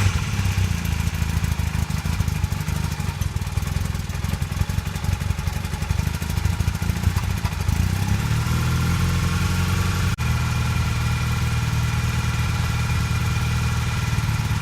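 1982 Honda CB450 parallel-twin engine idling just after starting, while the idle is being set on freshly rebalanced carburetors; the idle rises a little about eight seconds in. It runs a little rough.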